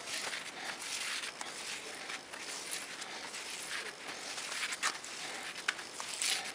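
Hand tap turned in a tap wrench, cutting threads into a thick steel plate: a dry scraping rasp with a few sharp clicks near the end.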